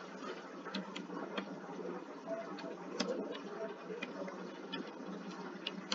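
A few faint, irregular clicks over a steady low background hum.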